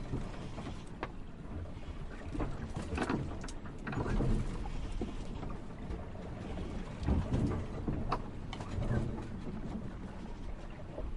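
Marina ambience: water sloshing against moored boats, with a low rumble that swells every few seconds and a few sharp knocks or creaks scattered through it.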